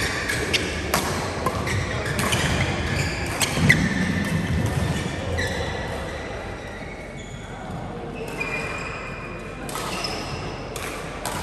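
Badminton play on an indoor court: sharp racket strikes on the shuttlecock, with short high sneaker squeaks on the floor. The hits are busiest in the first few seconds, thin out in the middle, and pick up again near the end.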